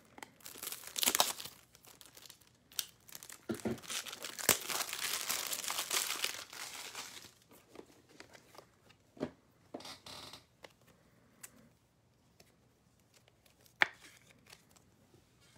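Crinkling and tearing of a trading-card pack wrapper for several seconds, followed by a few scattered short clicks and taps.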